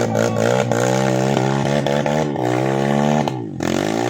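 A vehicle engine revving hard and unevenly under load, its pitch rising and falling again and again on a second attempt at a slippery track. It dips sharply a little after three seconds in, then picks up again.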